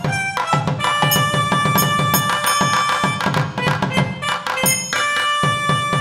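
Sampled nadaswaram (South Indian double-reed horn) playing a melody of held notes, triggered from a ROLI Seaboard Block through the Equator Colours of India pack, over a steady thavil drum and manjeera cymbal accompaniment from a sample library.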